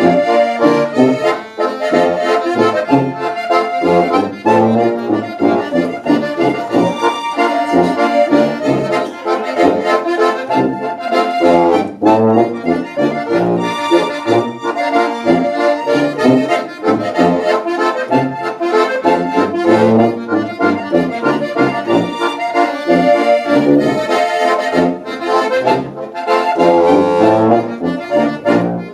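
Traditional Bavarian folk tune played on an accordion, with a tuba playing the bass notes underneath.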